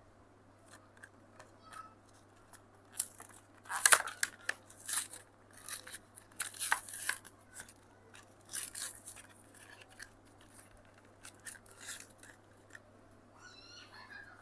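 Hot Wheels blister-card packaging being cut and torn open: a run of sharp snips, tearing card and crackling plastic, loudest about four seconds in.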